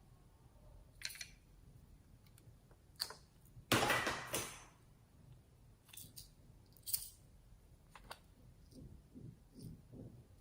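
Close-up handling sounds of slime ASMR work: scattered small clicks and crackles, with one louder crunchy, rustling burst lasting nearly a second about four seconds in.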